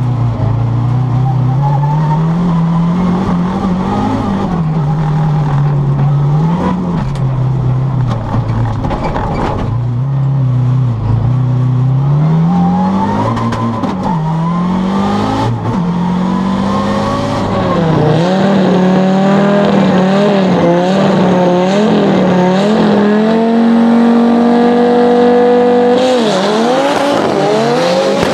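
Audi Quattro A2 Group B rally car's turbocharged 2.1-litre five-cylinder engine, heard from inside the cockpit, revving up and falling back again and again as it is driven hard through corners and gear changes. About two seconds before the end the sound switches to outside the car.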